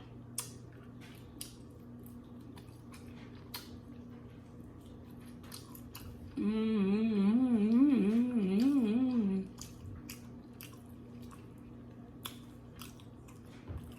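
Quiet chewing and small mouth clicks of someone eating chicken, with a woman humming a short wavering tune for about three seconds in the middle.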